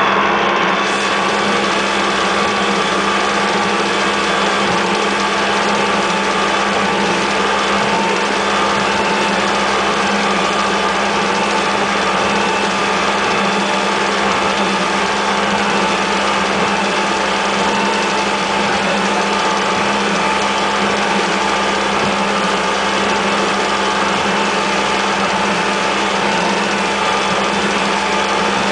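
A boat's engine running steadily at speed, a constant drone over a steady hiss of water rushing past the hull.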